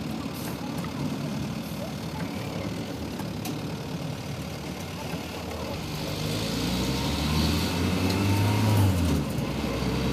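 Heavy truck's engine running while driving, heard from inside the cab with road and tyre noise. The engine note gets louder about six seconds in and eases slightly near the end.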